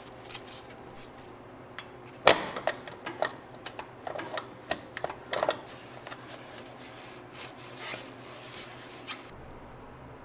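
Irregular knocks, clinks and scraping of hand tools and parts being handled during tractor maintenance work. The loudest is a sharp knock about two seconds in.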